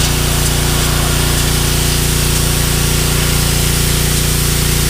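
Pressure washer running steadily, its motor humming under the hiss of the water jet spraying onto concrete and blasting dirt out of the porous surface.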